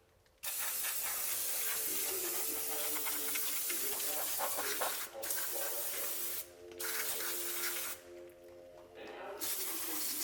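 Aerosol brake cleaner spraying in four hissing bursts, the first a long one of several seconds and the rest shorter, over quiet background music.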